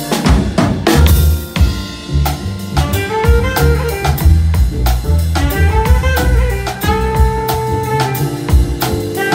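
Live jazz quintet playing: a saxophone carries a melodic line over walking upright bass, piano and drum kit with ride cymbal.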